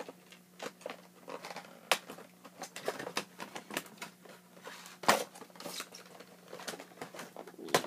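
Irregular clicks, taps and short rustles of toy packaging and paper inserts being handled, with a sharper knock about five seconds in.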